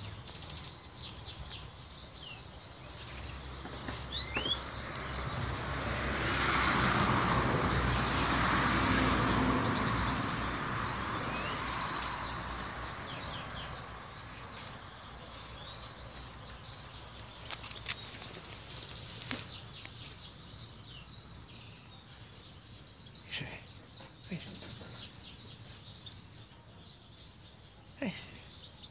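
Outdoor yard ambience with small birds chirping now and then. A broad rushing noise swells up a few seconds in and fades away over several seconds, and a few sharp clicks or taps come later.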